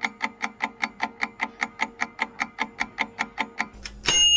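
Countdown-timer sound effect ticking steadily, about four ticks a second, then a bell-like ding near the end as the answer time runs out.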